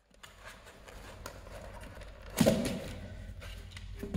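Handling noise as a plastic toy remote-control excavator and its remote are unpacked from a polystyrene foam box: light taps and clicks, with one louder bump about two and a half seconds in.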